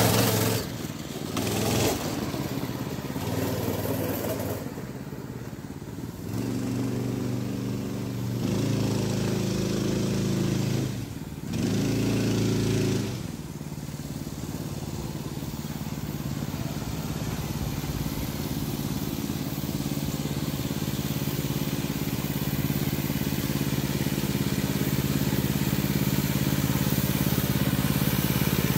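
Go-kart's small gas engine being driven, with the throttle opening and closing in repeated surges with short drops between. After about half way it runs more steadily and quieter, slowly growing louder near the end.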